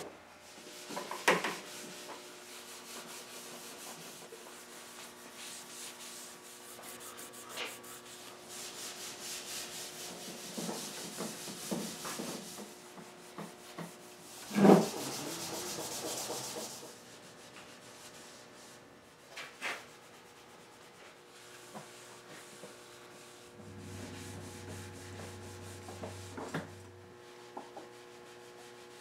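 Gray scrubbing pad with oil soap rubbing over the teak frame of a wooden chair in steady strokes. A single knock about halfway through is the loudest sound.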